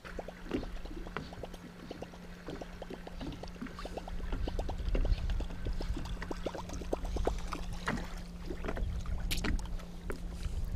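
Small waves slapping and knocking irregularly against a fishing boat's hull, over a steady low hum, with a low wind rumble that grows after a few seconds.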